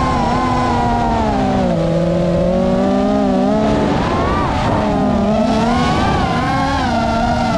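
FPV quadcopter's brushless motors and propellers whining, recorded on board, the pitch rising and falling with the throttle as the drone dives and banks. The pitch dips about two seconds in and turns rough and wavering around the middle.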